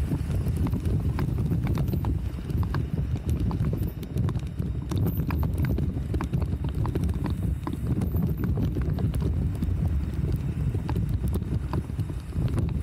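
Bicycle rolling over paving stones and asphalt: a steady low rumble with many small, irregular clicks and rattles as the bike and its mounted camera go over the joints in the paving.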